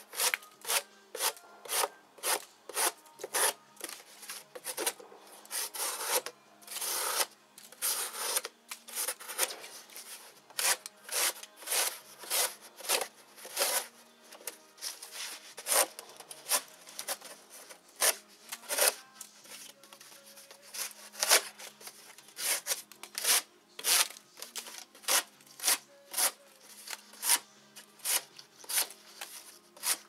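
A Victorinox Hunter XS pocket knife's blade slicing through cardboard in quick repeated strokes, about two a second, each a short scraping rasp, with a run of longer drawn cuts around a quarter of the way in.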